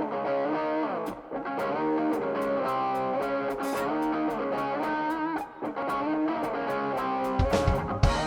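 Live blues band intro: an electric guitar with some distortion plays a solo lead line over a light, steady ticking beat. Drums and bass come in hard about seven seconds in.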